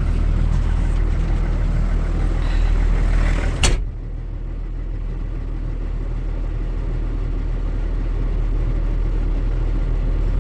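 Tractor engine running steadily under way. A brief sharp sound comes about three and a half seconds in, after which the engine sounds a little quieter and duller.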